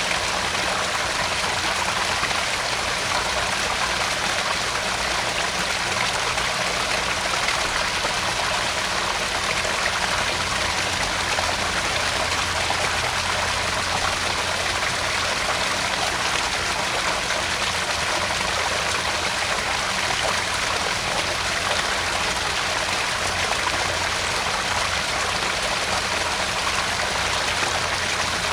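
Small garden pond waterfall: water spilling and splashing steadily into the pond.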